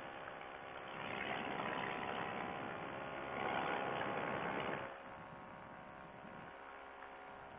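Paramotor engine running with wind rushing over the microphone in flight. The sound drops noticeably about five seconds in.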